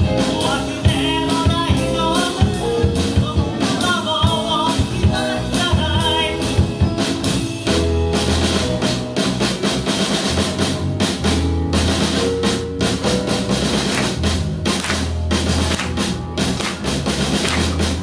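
Live rock band playing a song with singing, drum kit and electric guitar. The singing is clear in the first half, then the drums and bass come forward more heavily.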